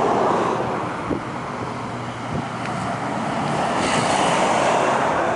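Wind buffeting the microphone, swelling and easing, over a steady low vehicle rumble.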